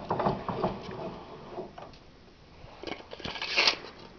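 Scattered light clicks, then a short burst of scraping and rattling handling noise about three and a half seconds in, made while the vise's jaw opening is being measured.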